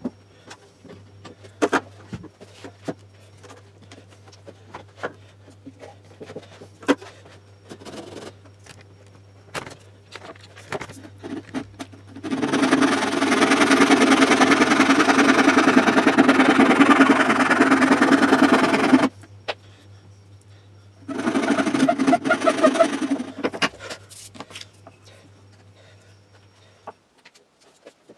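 Scattered clicks and knocks of a board and tools being handled, then a thin-bladed hand saw rasping steadily through a hardwood board clamped in a vise for about seven seconds. It stops, and a second, shorter stretch of sawing follows. A faint low hum runs underneath and stops near the end.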